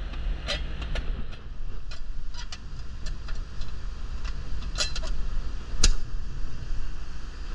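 Outdoor air-conditioner condensing unit running with a steady low hum, its compressor started without the hard start kit, with scattered sharp clicks and taps over it.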